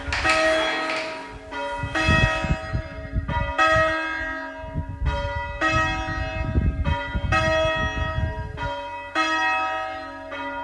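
Church tower bells rung full-circle by a team of change ringers: a steady run of strikes at about two a second, each note ringing on into the next, with a low rumble beneath for much of the middle.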